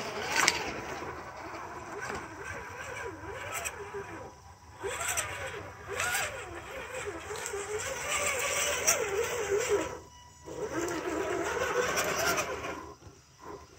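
Electric motor and geartrain of an RC scale crawler whining, the pitch rising and falling with the throttle as it crawls over rocks and mud. The motor stops briefly three times, about four and a half seconds in, near ten seconds, and just before the end.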